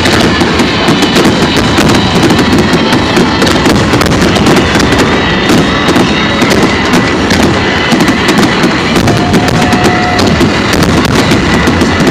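Aerial fireworks display in a dense barrage: rapid bangs and crackling packed closely together, loud, with no let-up.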